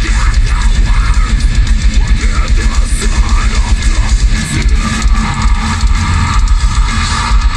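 Heavy metal band playing live through an arena PA: distorted electric guitars, bass and drum kit, loud and dense throughout.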